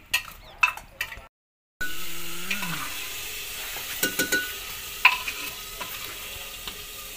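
A steel ladle stirring and clinking against a steel pot on a fire stove, a few clinks about four and five seconds in, over a steady sizzling hiss.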